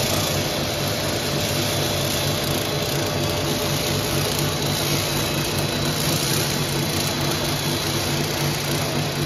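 1250 mm two-layer bubble wrap making machine running: a steady mechanical hum with a constant hiss from its motors and drives, and a few steady tones held throughout.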